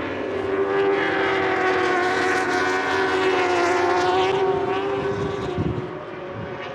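World Superbike racing motorcycles running at high revs, a steady high engine note that wavers slightly and then falls away about five seconds in.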